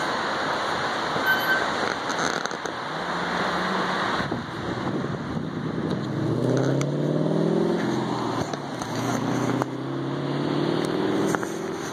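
A passing car's engine hum swells in the second half and fades near the end. The first few seconds hold a steady rush of wind and surf.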